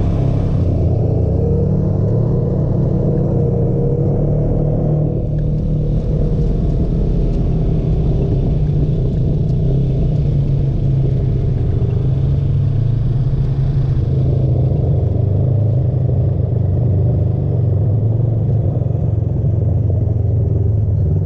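Side-by-side UTV engine running steadily as the vehicle drives along, heard from on board: a steady drone that dips slightly about five seconds in.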